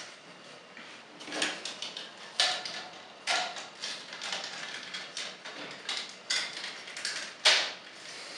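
Hard plastic parts of a Plesio Charge Megazord toy being fitted together by hand: a series of separate clicks and knocks as the foot pieces are pressed onto its underside, the sharpest snap near the end.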